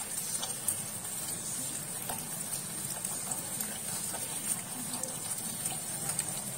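Onion masala sizzling steadily in oil in a nonstick kadai, with a few light scrapes and taps of a wooden spatula stirring it. It is being fried until the onions soften and the oil separates.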